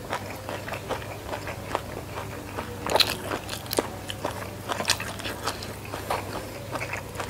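Close-miked chewing of fried shrimp in chili sambal with rice: irregular wet mouth clicks and small crunchy snaps.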